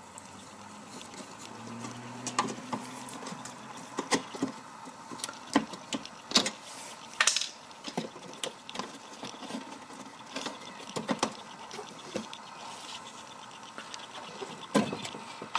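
Irregular clicks, clinks and knocks of hand tools working on car undercover bolts, with a brief low hum about two seconds in.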